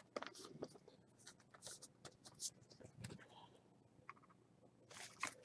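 Faint scratchy rustling and light ticks of baseball cards and a plastic card sleeve handled by gloved hands.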